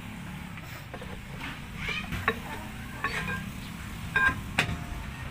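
Steel rear brake drum being slid onto the hub over new brake shoes, with metal scraping and a couple of sharp clinks near the end, over a steady low hum.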